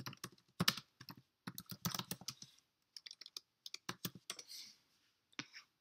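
Typing on a computer keyboard: quick, irregular runs of key clicks broken by short pauses, with two last taps near the end.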